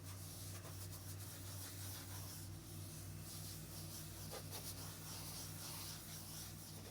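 Pressure washer machines running steadily and faintly: a low, even engine hum with a light hiss over it.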